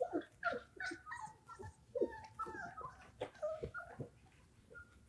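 Five-week-old German Shorthaired Pointer puppies whining and whimpering: a rapid run of short, high, squeaky whines, several a second, with a few small clicks among them.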